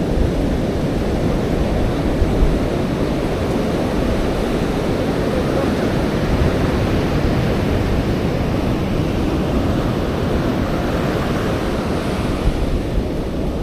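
Steady rush of ocean surf breaking on a sandy beach, with wind buffeting the microphone; the wash swells louder and brighter about ten seconds in.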